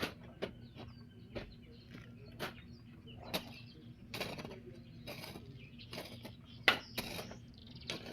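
Irregular metallic clinks and knocks of hand tools such as a hoe or shovel working murram soil, one or two a second, with one sharper knock about two-thirds of the way through.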